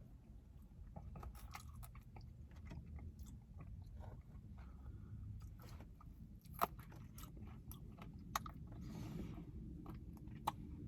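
Chewing and biting on sticky fried chicken wings: a run of small wet mouth clicks and crunches, with a few sharper clicks in the second half.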